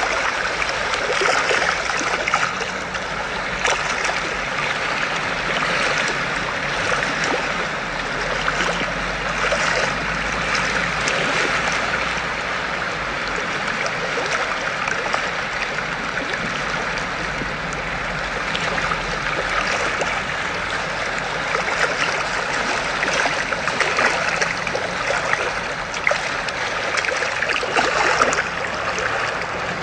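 Steady running-water sound, like a trickling stream, played through a tablet's speaker by a cat game app with a swimming fish, with a few faint ticks here and there.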